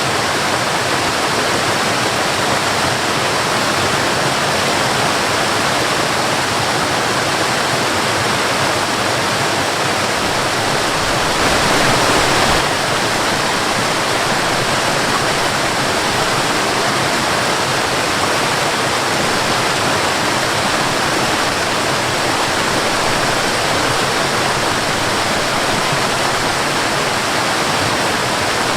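Waterfall: a steady, full rush of falling water, swelling slightly for about a second near the middle.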